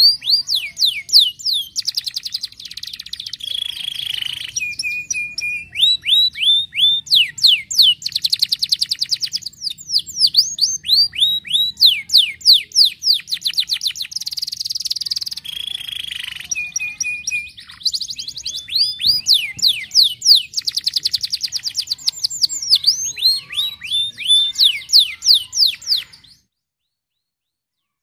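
Domestic canary singing a long, loud song of fast runs of repeated down-slurred notes, trills and short held whistles, which cuts off suddenly about 26 seconds in.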